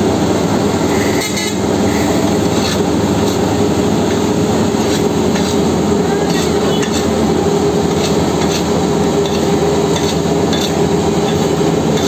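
Asphalt paver's diesel engine running steadily, a loud even drone, with short scrapes from rakes and a shovel working the hot asphalt mix at intervals.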